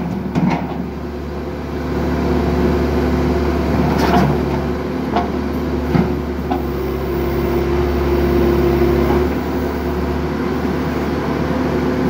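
Backhoe's diesel engine running steadily, its note swelling for a couple of seconds past the middle, with a few sharp knocks from about four to seven seconds in as the bucket strikes and shoves the steel fuel tank.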